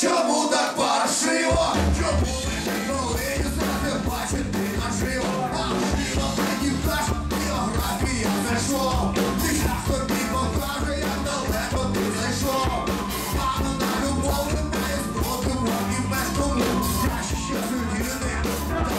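A rock band playing live, with male voices singing over electric guitar. Bass and drums come in about a second and a half in and keep a steady beat.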